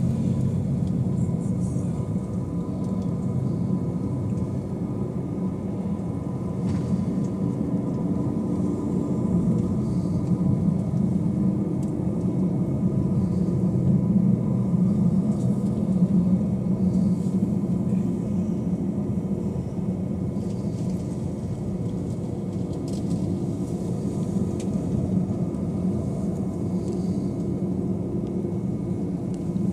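Airbus A321 cabin noise while taxiing: a steady low rumble of the airliner rolling on the taxiway at low power, with a faint steady high tone.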